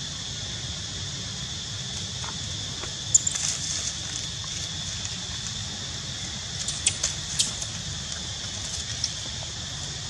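Dry leaves crackling and rustling in short bursts, once about three seconds in and several times around seven seconds, over a steady high drone of insects.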